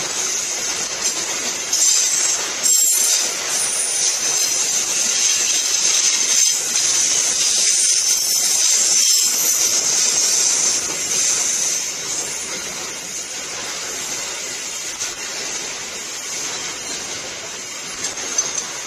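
Container freight train rolling past close by: a steady rush of steel wheels on the rails with a high hiss over it, easing a little after about twelve seconds.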